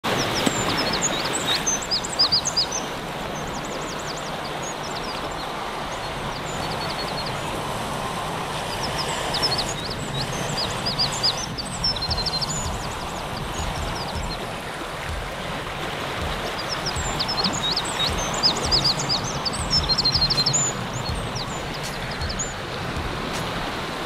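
Shorebirds calling in quick series of short, high notes, in three bursts, over a steady wash of surf.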